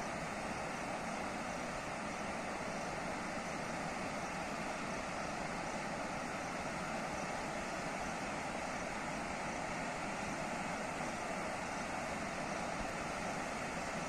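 Steady rushing of a waterfall and the white-water rapids below it.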